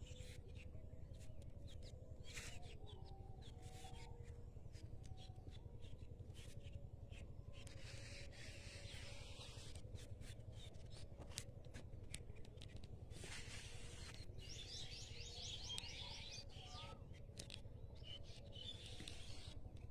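Small birds chirping faintly, with a quick run of repeated chirps a little past the middle, over a steady low hum and scattered small clicks.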